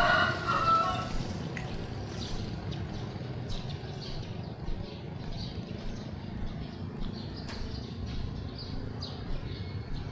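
A rooster crowing; the call is already under way and ends about a second in. Then comes steady outdoor background noise with scattered small clicks and faint high chirps.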